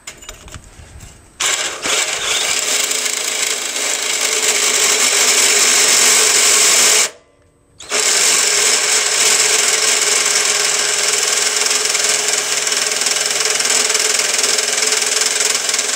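Cordless drill spinning an inch-and-a-half hole saw into the outlet of a 1997 Yamaha Virago 1100's muffler, cutting through the exhaust baffle; a leftover piece of stainless baffle inside made the drilling hard. It starts about a second and a half in, stops for under a second near the middle, then runs again.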